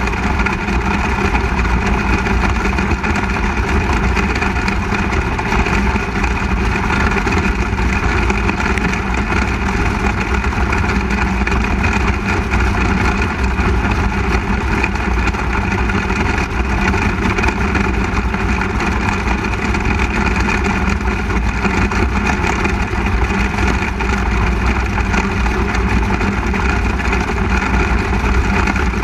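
A 360 sprint car's V8 engine running at a steady pitch, heard onboard the car, with other sprint cars' engines mixed in.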